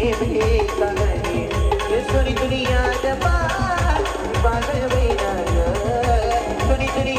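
Live band playing an instrumental passage of an Ahirani folk-style song: heavy drum beats at a steady driving pace under a wavering lead melody.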